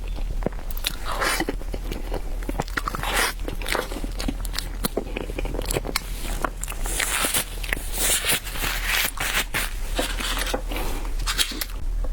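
Close-up eating sounds of a person biting and chewing chilled bread: irregular wet mouth clicks and smacks, over a steady low hum.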